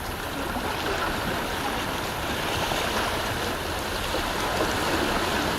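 Beach ambience: steady wash of surf with faint, scattered voices of a light crowd in the distance.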